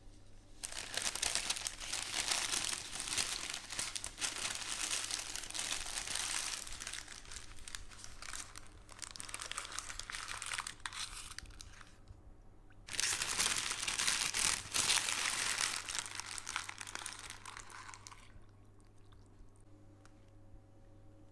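A sheet of baking parchment being crumpled and squeezed in the hands. It crinkles in two long bouts with a brief pause of about a second between them, and only soft rustling is left near the end.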